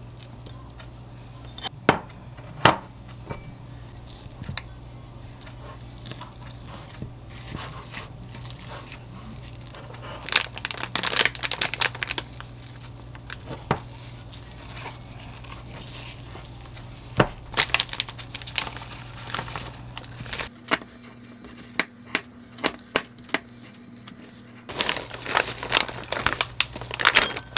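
Food-prep handling sounds: roasted sweet potato being mashed by gloved hands in a glass bowl, with plastic crinkling and scattered light taps and clicks. Near the end there is a denser burst of plastic-bag crinkling as shredded mozzarella is shaken out onto a plate. A low steady hum runs underneath.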